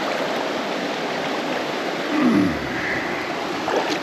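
Mountain trout stream rushing steadily over rocks, with a short groan from a man's voice sliding down in pitch about two seconds in.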